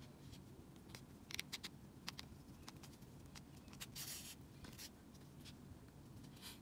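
Faint handling of yarn and crochet work: a scatter of soft clicks and taps, with a brief rustle about four seconds in.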